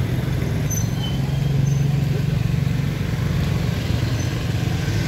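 A motor vehicle engine running steadily, a low even hum that grows a little louder in the middle.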